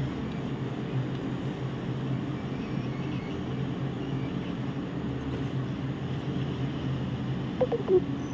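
Hot-air rework gun blowing steadily with a low hum, melting the solder on one pin of a laptop motherboard's IO chip so the pin can be lifted off its pad. Two brief short sounds near the end.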